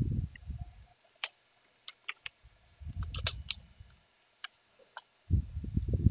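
Computer keyboard keystrokes: about ten sharp, irregular clicks as a short terminal command is typed and entered. Low muffled rumbles come and go in between.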